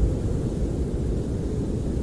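Snowstorm wind heard from inside a camper: a steady, deep rumble with little hiss above it.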